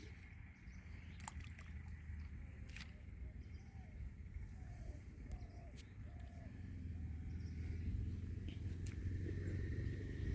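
Rural outdoor ambience: a bird gives a run of about five short low calls near the middle, over a low rumble that grows louder in the last few seconds and a faint steady high tone.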